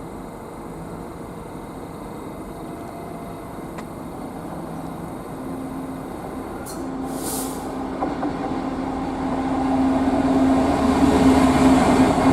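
Freight train approaching at speed, growing steadily louder, with a steady low hum building in the second half and a brief hiss high up about seven seconds in.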